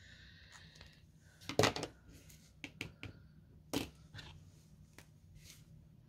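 Pens and a marker being handled on a craft desk: a few sharp clicks and taps as they are put down and picked up, the loudest about a second and a half in and another just before four seconds.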